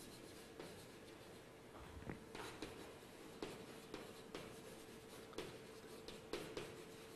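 Chalk writing on a blackboard: faint, irregular taps and short scrapes as words are written.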